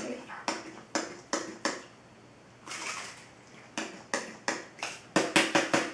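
Plastic finger-pump sprayer on a glitter spray bottle clicking as it is pressed over and over, about a dozen strokes coming quicker near the end, with a short hiss near the middle. The pump is not working and gives no proper spray.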